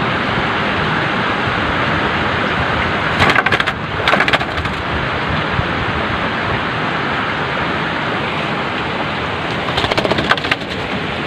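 Steady, loud hiss of noise, with short bursts of crackling clicks about three and four seconds in and again near the end.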